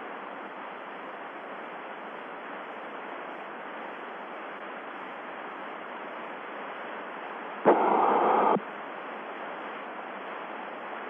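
Steady hiss of a narrow-band radio voice link, open with no one talking. About eight seconds in, a louder burst of static lasts just under a second and cuts off sharply.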